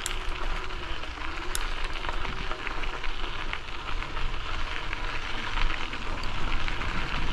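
Wind buffeting the microphone with a low rumble over a steady crackling hiss and scattered small clicks, from riding a bicycle along a path.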